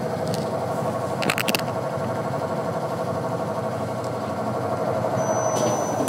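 Whirlpool top-load washing machine running steadily on test after a control-board repair, its motor and drum giving a steady hum with a few brief clicks about a second in. Near the end the hum starts to drop in pitch as the machine slows, and a thin high tone sounds for about a second.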